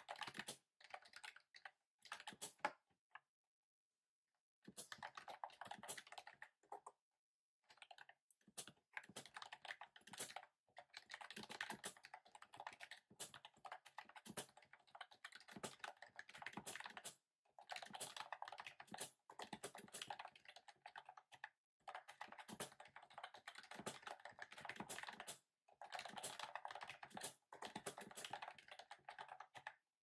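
Quiet, fast typing on a typewriter-style keyboard with round keycaps: runs of rapid key clicks a few seconds long, broken by short pauses, the longest a silence of about a second and a half a few seconds in.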